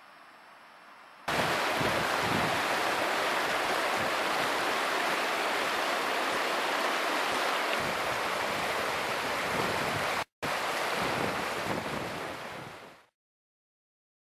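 Loud, steady rush of water from a rocky hill burn running fast over boulders. It starts abruptly about a second in, breaks off for an instant near ten seconds, and fades out near the end.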